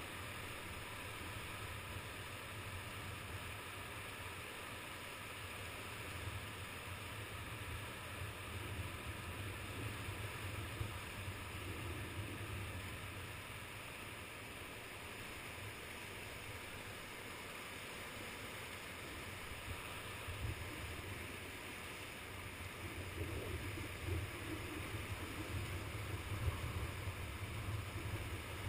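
Steady rush of water from the ebb-tide current running through a narrow tidal gorge, with a low rumble underneath.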